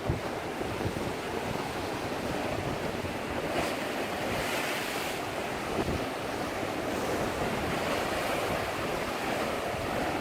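Sea waves breaking on rocks and washing in as foam, a continuous surf wash with a louder hissing surge about four seconds in. Strong wind buffets the microphone.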